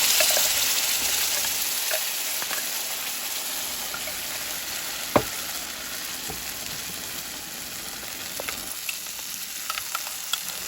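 Paste frying in hot butter in a pan: a loud sizzle that gradually dies down while it is stirred. There is one sharp knock about five seconds in and a few lighter clicks.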